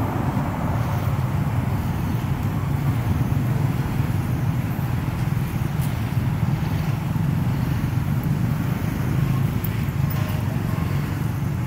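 Steady low rumble of background noise, even throughout, with no distinct calls or impacts standing out.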